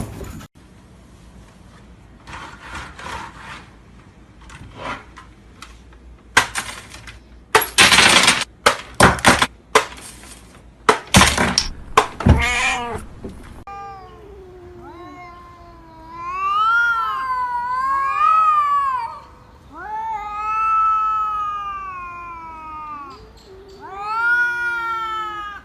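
A domestic cat yowling in long, drawn-out, wavering meows, several in a row through the second half. Before them come a series of short noisy scuffs and knocks.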